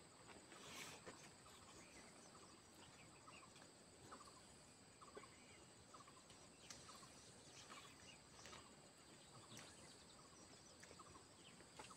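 Near silence: faint rural ambience, a steady high-pitched insect drone with scattered soft bird chirps and a few faint clicks.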